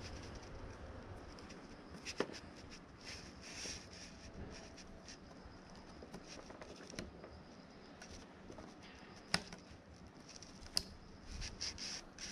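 Small plastic parts of a motorcycle front brake light switch being handled and fitted by hand, with faint rustling and a few sharp clicks, the loudest about two seconds in and again near the end.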